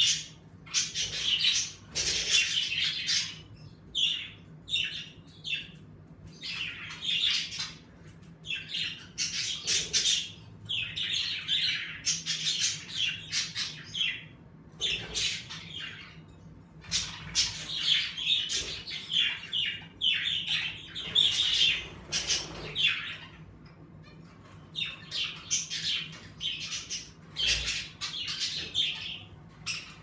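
A flock of budgerigars chirping, chattering and squawking in quick bursts, with a few short lulls.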